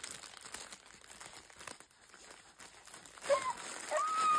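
Crinkly pages of a soft cloth baby book rustling as they are handled and turned. Near the end come two short, high squeals that rise and fall in pitch.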